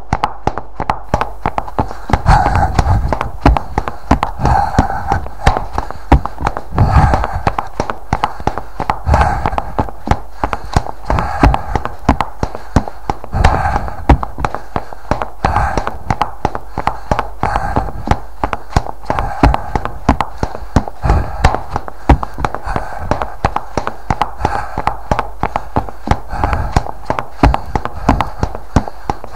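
A running person's heavy breathing, one breath swelling about every two seconds, over a quick run of footfall taps.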